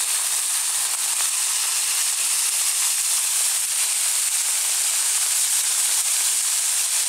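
Thin-shaved ribeye steak sizzling steadily on a hot, oiled Blackstone flat-top griddle: a continuous even hiss of searing meat.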